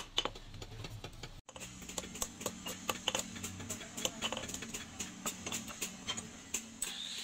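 Blacksmith's hand hammer striking a hot rebar claw-hammer head on a steel anvil: quick, regular metallic blows, about two to three a second, broken by a brief pause about one and a half seconds in.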